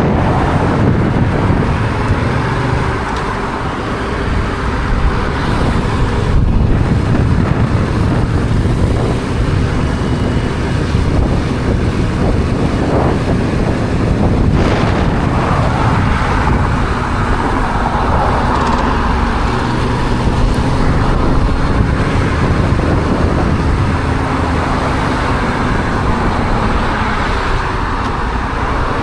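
Yamaha XSR700's stock 689 cc parallel-twin engine running while riding through city traffic, its pitch rising and falling with the throttle, with wind rushing over the microphone.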